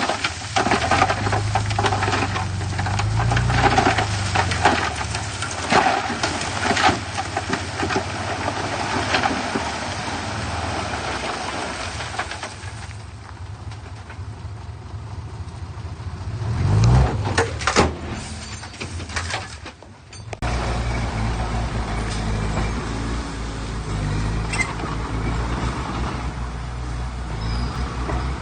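Heavy diesel earthmoving machinery at work: engine running under load with clanking and knocking, a quieter spell with one rising rev, then a sudden change to a steady low engine drone.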